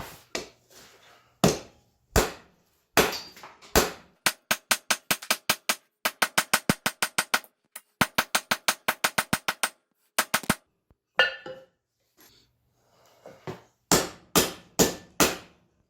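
Hand hammer striking hot 5160 coil-spring steel on an anvil, flattening and spreading the upset chisel head. A few separate heavy blows, then three quick runs of lighter ringing strikes at about six a second, and a last handful of heavier blows near the end.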